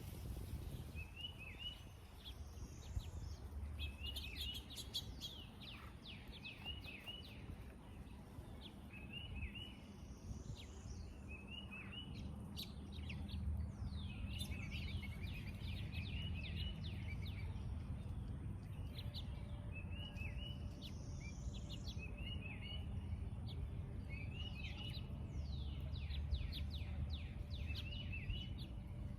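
Several birds chirping and calling, with short high notes repeating and overlapping throughout, over a low steady background rumble.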